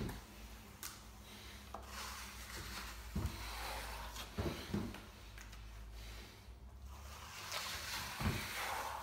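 Plastering trowel sweeping over wet gypsum multi-finish plaster, a scraping hiss in several long strokes with a few light knocks, as the skim coat is flattened and filled with a little water.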